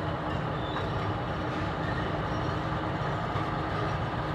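Steady low mechanical rumble of an engine running, unchanging throughout.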